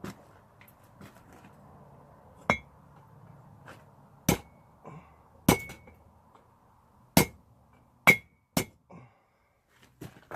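Blacksmith's hammer striking hot metal on an anvil: about eight separate, unevenly spaced blows, each with a short metallic ring.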